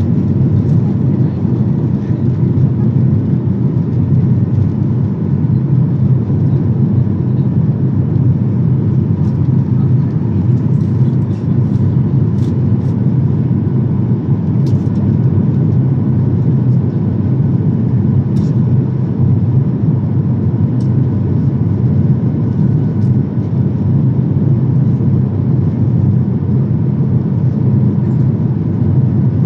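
Steady cabin noise inside a Boeing 737-800 climbing after takeoff: its CFM56-7B turbofans and the airflow make an even low rumble, with a faint steady whine above it.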